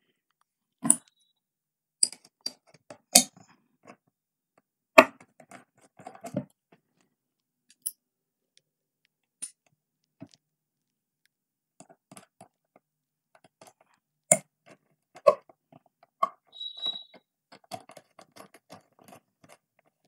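Scattered small clicks and taps of hands handling electrical wire, hand tools and a plastic switch-socket board while fitting a wire to the board's terminals.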